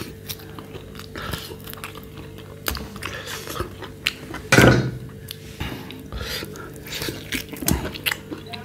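Close-miked chewing and gnawing on roasted goat ribs: uneven wet smacks, clicks and bites as meat is pulled off the bone. About halfway there is one short, loud voiced sound from the eater.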